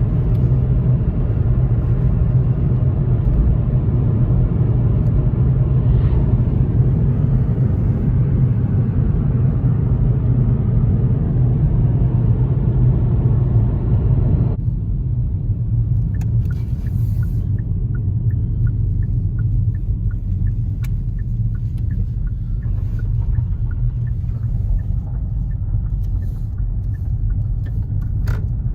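Steady low rumble of a moving vehicle heard from inside its cabin. About halfway through it abruptly turns duller, with faint light ticks over it.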